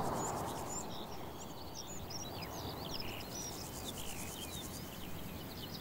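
Wild songbirds chirping and twittering in many short, quick calls over a steady background hiss. A soft rushing noise fades out in the first second.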